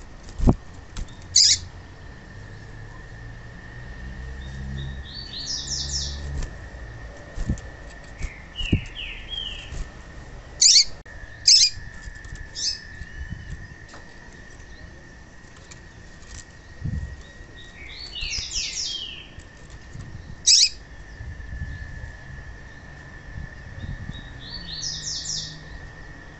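Female yellow-bellied seedeater (papa-capim) calling: a few sharp high single notes and several quick clusters of thin chirps, with wing flutters and hops on the cage perch. A faint steady high tone runs underneath.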